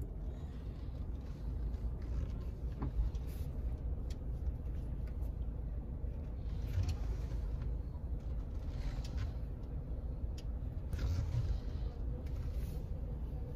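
Steady low road and engine rumble heard inside a moving car's cabin, with a few faint ticks and rattles.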